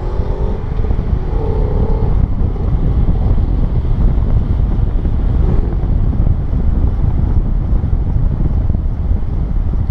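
Steady, loud low rumble of wind buffeting the microphone over the noise of a moving vehicle.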